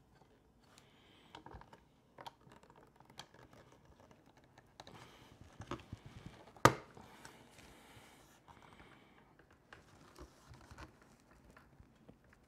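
Light clicks, taps and scraping of metal and plastic as slimline pen parts are handled and pressed together in a pen press, with one sharp click a little past halfway.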